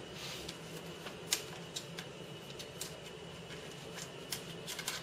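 Keys of a MacBook Air 11-inch keyboard clicking as they are pressed, a handful of separate presses spaced irregularly, with a few quick ones near the end.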